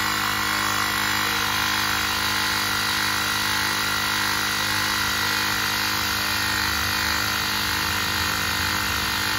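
Baseus portable cordless tyre inflator's electric compressor running steadily, pumping up a soft scooter tyre.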